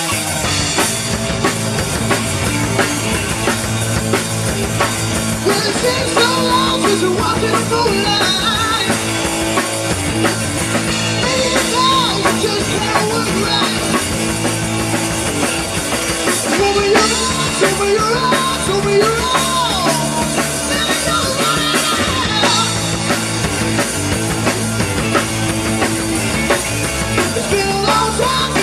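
Live rock band playing at full volume: drum kit, bass and electric guitars through amplifiers and a PA.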